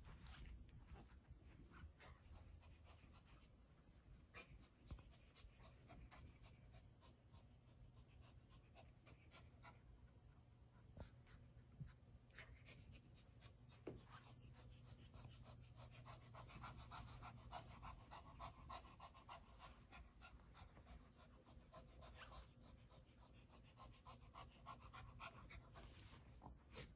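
Faint, rapid panting of a Shih Tzu dog, over a low steady hum.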